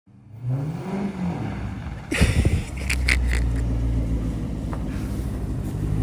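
Chrysler 300C's 5.7 Hemi V8 engine revving up and back down about a second in, a short rush of noise near two seconds, then running with a steady low rumble as the car pulls up.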